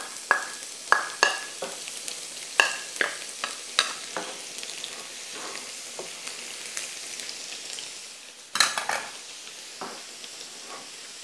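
Chopped garlic sizzling as it sautés in hot oil in a frying pan, stirred with a spatula. In the first four seconds a quick run of sharp knocks comes from the spatula scraping the garlic out of its bowl and striking the pan. About eight and a half seconds in there is one brief louder burst.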